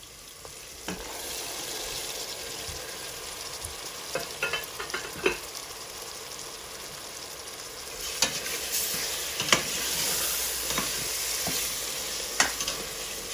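Onion-tomato masala sizzling in a stainless steel pot while mashed roasted aubergine is stirred in with a metal spatula, which scrapes and knocks against the pot in several short clusters. The sizzle grows louder about eight seconds in.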